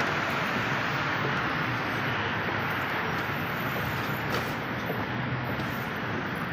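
Steady road-traffic noise from a busy city street: an even wash of passing cars with no single vehicle standing out.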